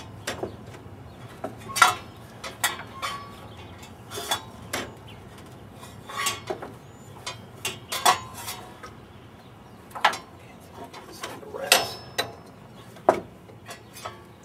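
Irregular metallic clinks and clanks of a hand wrench working the fan bolts at the front of a Ford 302 V8, the steel tool knocking and rattling against the fan and water-pump hardware. The clinks come one to two seconds apart, with a few louder knocks.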